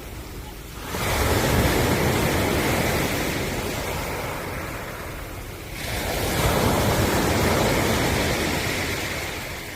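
Ocean waves breaking on a shore: two waves about five seconds apart, each rising suddenly into a rush of surf and then slowly fading as it washes out.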